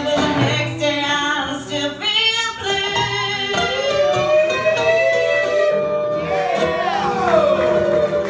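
A woman sings live over an acoustic guitar. She holds one long note about halfway through, then swoops up and down in pitch.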